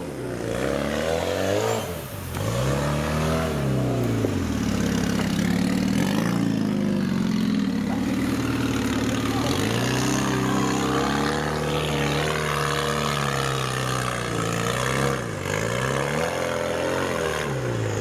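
Off-road 4x4's engine revving up and easing off again several times, its pitch rising and falling every few seconds.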